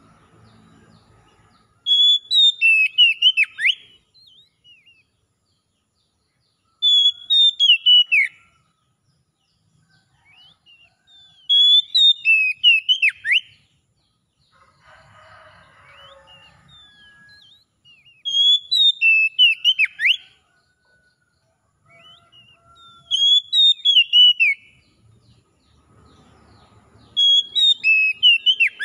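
Oriental magpie-robin (kacer) singing its wild-type 'ngalas' song: six short phrases of clear whistled notes with falling slurs, each a second or two long, repeated about every five seconds.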